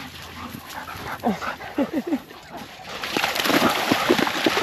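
Dog giving short, falling whines and yips while playing, in quick runs of several. From about three seconds in, splashing in shallow water comes up louder beneath them.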